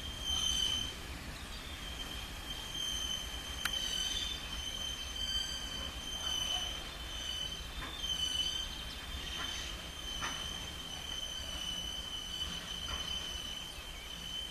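Freight wagon wheels squealing on the rails, a steady high-pitched squeal that wavers a little, over a low rumble from a slow loaded iron-ore train, with a few sharp clicks.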